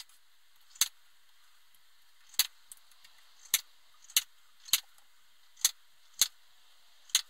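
A series of sharp light clicks, about eight at uneven spacing, from a small metal tool tapping and knocking against a drilled glass-fibre panel as it is handled on a workbench.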